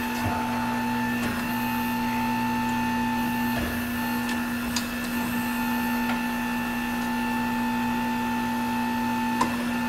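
Hunter Revolution tire changer running its automatic demount: a steady electric drive hum with a higher whine as the wheel turns and the tool works the bead off the rim, with a couple of light clicks.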